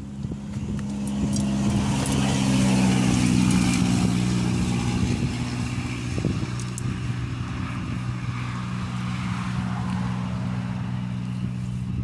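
Road traffic on a highway: a vehicle passes, its noise swelling over the first few seconds and then fading, over a steady low engine hum.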